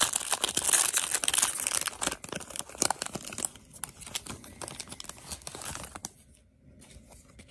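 Foil Pokémon booster pack wrapper crinkling and tearing as it is opened and the cards are pulled out, loudest in the first three seconds, then fading and nearly stopping near the end.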